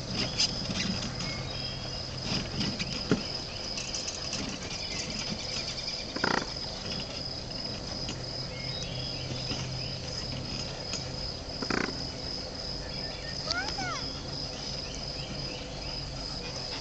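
Steady high-pitched insect chirring over a low hum, with a couple of short knocks and a brief squeaky call near the end.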